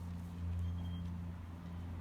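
Steady low hum with no change.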